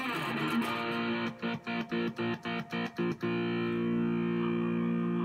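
Distorted electric guitar chords: a strummed opening, then a run of short, choppy chords at about four a second, then a single chord left ringing from about three seconds in.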